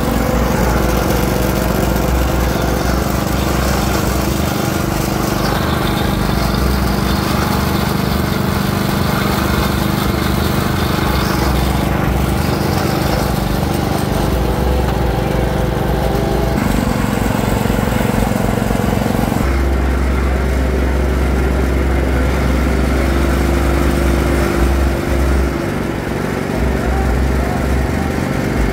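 A motor-driven sugarcane juice press runs steadily as stalks are crushed between its steel rollers, making a continuous mechanical drone. The drone changes tone and its low rumble strengthens about two-thirds of the way in.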